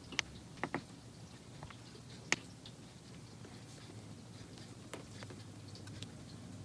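A few sharp clicks from buttons being pressed on a Roland SB808EX sampler's front panel, the sharpest about two seconds in, over a faint low steady hum.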